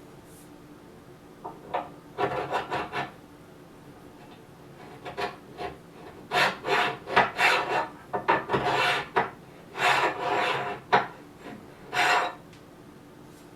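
A series of short scraping and rubbing sounds, a dozen or so strokes of under a second each with brief pauses between. Something is being pushed, slid or rubbed by hand.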